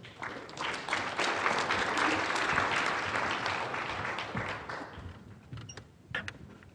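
Audience applause that swells early and dies away after about five seconds. A few separate knocks follow near the end.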